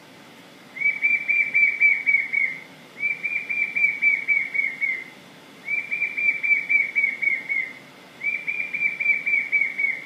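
A recorded bird song played back through a speaker: four phrases, each a quick run of about eight identical short notes at roughly four a second, with brief pauses between phrases.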